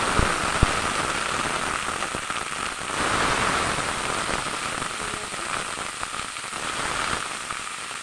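Shredded cabbage, carrot and peas sizzling loudly in hot mustard oil in an aluminium kadai, just added to the pan: a dense crackling hiss that eases a little toward the end, with one sharp tick under a second in.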